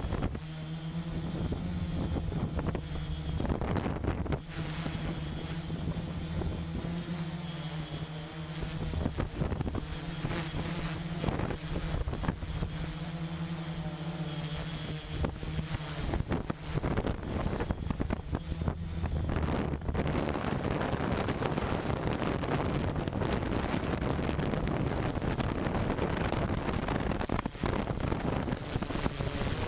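Construction machinery engine running steadily with a low hum and a faint high whine. About twenty seconds in, the hum gives way to an even rushing noise, with wind buffeting the microphone.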